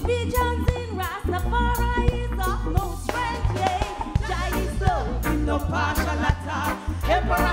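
Live reggae band playing: a loud bass line, regular drum strikes, electric guitar and keyboards, with a woman singing melodic vocal lines over it.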